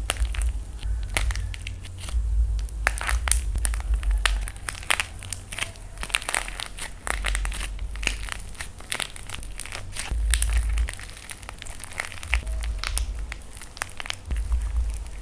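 Dried plaster clay being crushed by hand: dense, irregular cracking and crunching, many small sharp snaps close together, with a low rumble that comes and goes.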